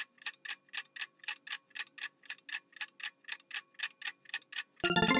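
Ticking-clock countdown sound effect, about five even ticks a second, giving way just before the end to a bright chiming jingle.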